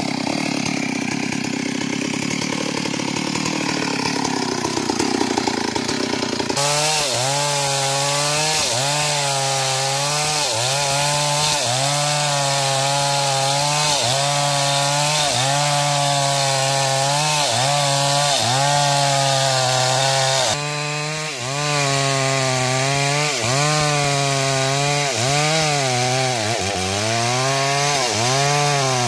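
Stihl MS 382 two-stroke chainsaw cutting into a mahogany trunk under load. Its engine note sags and recovers about once a second as the bar works through the wood, dipping deeper near the end.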